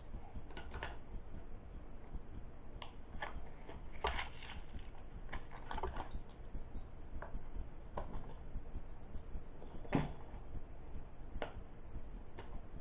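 Lock pick and tension wrench working in the keyway of a Brinks four-pin padlock: small irregular metal clicks and scrapes as the pins are raked and set, with a few sharper ticks about 4, 10 and 11½ seconds in.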